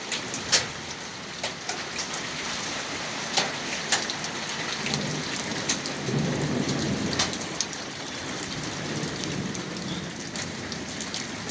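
Small hail, pea- to half-dime-sized, falling with rain: a steady hiss broken by sharp, irregular clicks of hailstones striking, with a low rumble in the middle.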